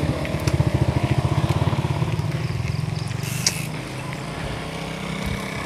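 An engine running with a fast, even pulse, growing fainter from about three seconds in, with a single sharp click partway through.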